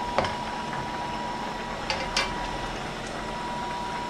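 A cooking spoon clicking against a wok as a sauce is stirred, once early and twice close together about two seconds in, over a steady background hiss.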